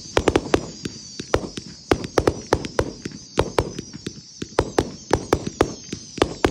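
260-shot firework cake (The Admiral) firing: a rapid, irregular string of sharp shots, several a second, as shells launch and burst overhead.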